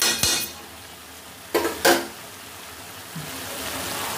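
Metal spatula scraping and knocking against a metal kadhai of cooking turnip sabzi: one stroke at the start and two more about a second and a half in, over a low sizzle from the pan that grows steadier near the end.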